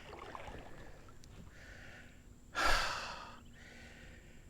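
A man's heavy sigh, a breathy exhale of frustration that starts about two and a half seconds in and tails off, after a fainter breath just before it.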